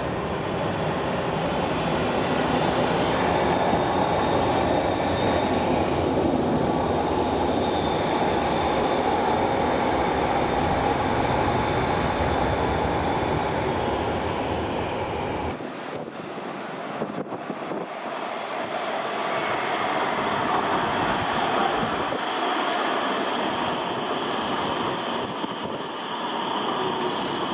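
Rotterdam RET electric rail vehicle running on the tracks: a steady rumbling running noise with a faint high-pitched whine over it. About halfway through, the deep rumble drops away abruptly, and the running noise then builds again.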